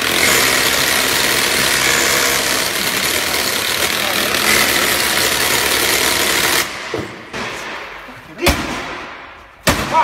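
Power drill boring into the steel top of an old safe, running steadily and loudly, then stopping after about six and a half seconds. Two sharp hammer blows on the safe follow near the end.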